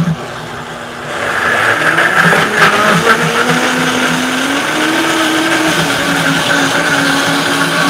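Countertop blender running, getting louder about a second in, its motor pitch rising a little partway through. It is puréeing drained pears with rolled oats into a thick pear whipped topping.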